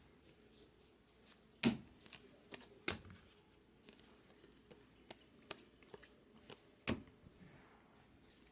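Baseball trading cards being flipped through by hand: a scatter of short, sharp clicks and slides of stiff card stock, the loudest about two, three and seven seconds in.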